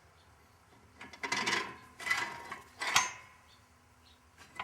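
Steel push bar of a Tire Ring Master tyre-mounting tool being set in place: metal clanking and scraping in three short bouts, the last and loudest about three seconds in with a brief metallic ring.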